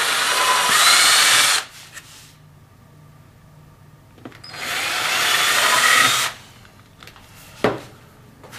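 Power drill pre-drilling screw holes in wood: two runs of a second or two each, with a pause between. A single sharp knock near the end.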